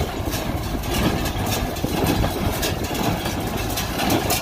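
Tractor engine running steadily while a Massey Ferguson 124 square baler works in the hay, its plunger knocking in a steady rhythm as it packs bales.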